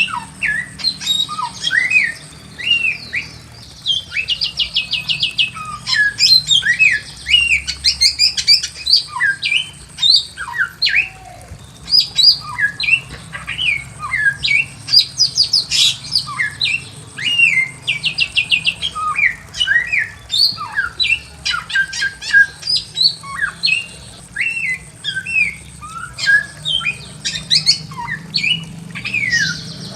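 Bare-throated whistler (samyong) singing continuously: a busy run of short whistled notes sliding up and down, broken by several fast rattling trills.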